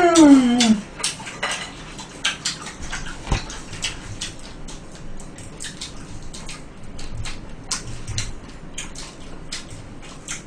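A short hummed voice that rises and then falls at the very start, then the irregular crunching, chewing and clicking of people eating crisp fried chicken, with many short sharp clicks and no speech.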